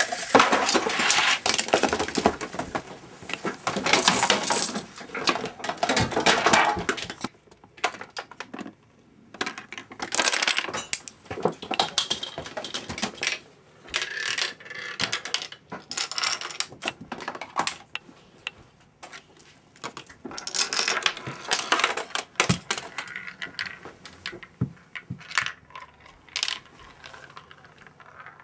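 A homemade Rube Goldberg chain reaction running: marbles, dominoes and small toy parts rolling, knocking and clattering along ramps and tracks. It comes in several bursts of rapid clicking and rattling, with short pauses between them.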